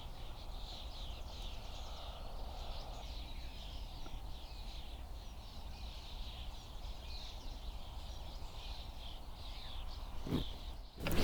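Songbirds chirping steadily in quick, repeated notes over a low background rumble, with two sharp knocks or swishes near the end.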